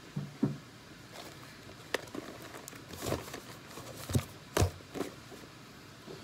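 Plastic DVD cases knocking and clacking as they are handled and sorted: a handful of irregular sharp clacks, the loudest about four and a half seconds in.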